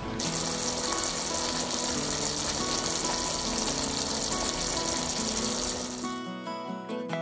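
Tuna curry sizzling in a frying pan, a steady hiss that cuts off about six seconds in, over background guitar music.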